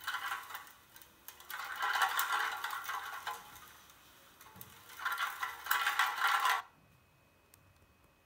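Empty metal drink can rolling on its side across a marble tabletop, a rattling rumble in three stretches that stops about two-thirds of the way in. It is being pulled along by a plastic pipe that has been charged by rubbing with cloth, which attracts it through induced charge.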